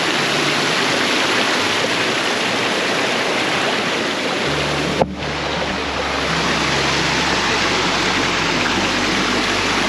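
Stream water rushing and cascading over rocks at a waterfall: a loud, steady rush. A single sharp click about halfway through.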